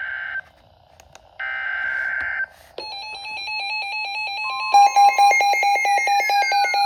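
Emergency Alert System tones: two buzzy digital data bursts of about a second each, separated by a short gap, then about three seconds in a synthesized electronic alert sequence of rapid beeps, stepping tones and falling pitch glides.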